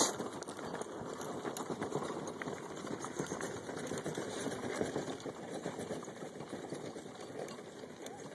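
Hooves of a two-horse team and the clatter of the wagon they pull, a dense run of small knocks and rattles that slowly fades as the team moves away. A sharp knock right at the start is the loudest moment.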